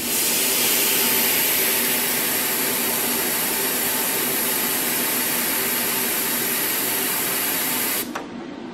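Compressed-air blow gun hissing steadily at a stainless steel exhaust pipe joint, cutting off abruptly near the end.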